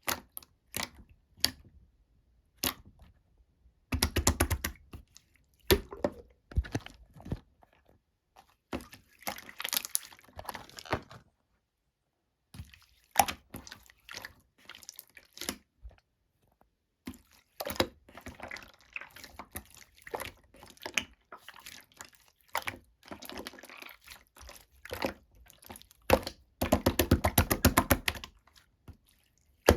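Slime being squished and stretched by hand, making sticky clicks and pops with short pauses between. Rapid runs of crackling pops come about four seconds in and again near the end.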